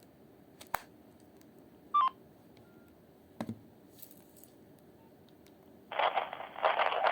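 Nokia 2660 phone sounds: a click, then a short electronic keypad beep about two seconds in, stepping down slightly in pitch, and a soft knock of the phone being handled. Near the end a loud, harsh noise starts suddenly.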